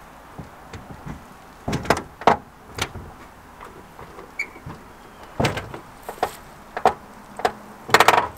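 Metal clunks and clicks of a car door's latch and hinges as the door is worked open. They come as a string of sharp, separate knocks, and the loudest few come close together near the end.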